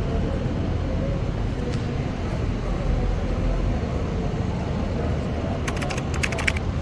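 Steady low rumble of a road vehicle running, with a quick rattle of sharp clicks about six seconds in.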